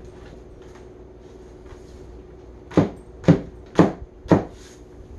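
Four sharp knocks about half a second apart, from a hammer tapping on a particleboard shelf unit to drive its panels together during assembly.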